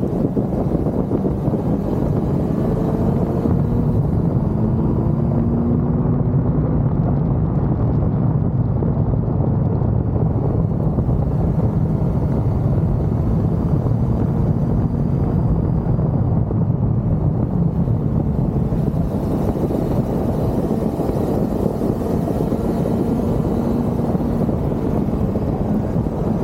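Kawasaki Z900's inline-four engine running under way, its note rising and falling gently with the throttle, over steady road and wind noise.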